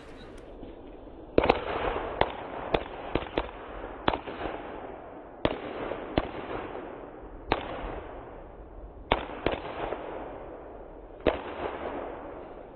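Firecrackers going off: about a dozen sharp bangs at irregular intervals, with a crackling hiss between them.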